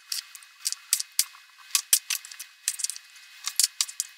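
Kitchen knife cutting cherry tomatoes into quarters on a wooden cutting board: a run of short, sharp taps as the blade strikes the board, irregular and about three a second.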